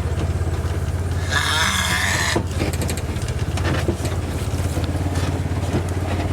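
Vehicle engine running steadily at low speed with a constant low rumble, a brief rushing noise about a second and a half in, and light rattles and clicks afterward.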